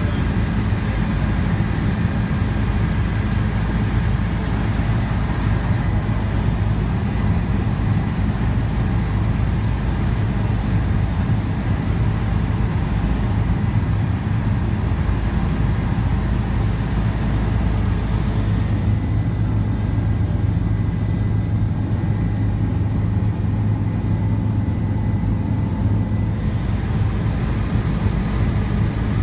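Steady helicopter noise in flight, heard from inside the cabin: a constant low drone of rotor and turbine with a hiss above it. The hiss eases for several seconds past the middle while the drone holds.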